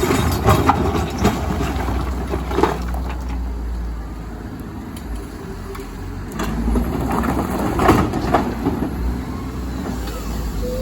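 Komatsu hybrid excavator working, its engine running steadily under load, with rock clunking and knocking against steel several times. There is a quieter spell in the middle.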